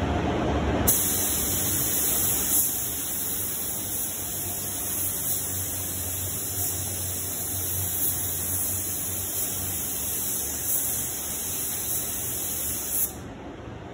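Compressed-air paint spray gun hissing steadily as it sprays a coat on the panel. The hiss starts abruptly about a second in and cuts off shortly before the end, over a low background hum.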